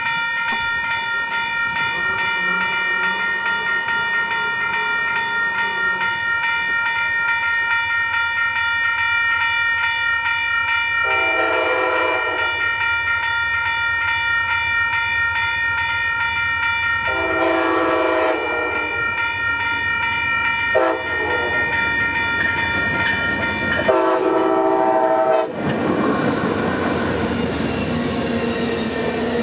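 Grade crossing bell ringing steadily while an approaching Amtrak passenger train's locomotive horn sounds the crossing signal: two long blasts, a short one and a final long one. The bell stops as the last blast ends, and the train then passes close by with a heavy rumble of passing cars on the rails.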